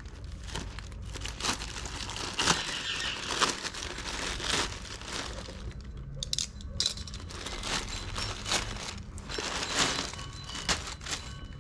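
Packaging crinkling and rustling as it is unwrapped by hand to take out a new goalkeeper glove, in irregular crackles with some tearing.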